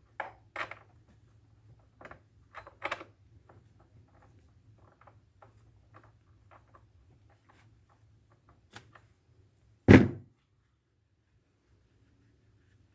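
Chainsaw wrench loosening the bar nuts on a Husqvarna 450's side cover, heard as a string of sharp metal clicks and scrapes, then lighter ticks. About ten seconds in comes a single loud thunk.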